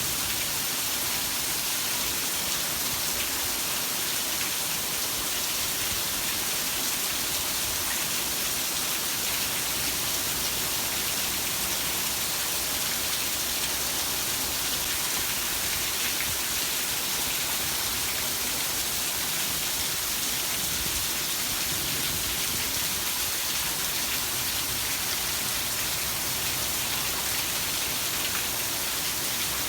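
Heavy rain falling steadily, an even hiss of many drops with no breaks or thunder.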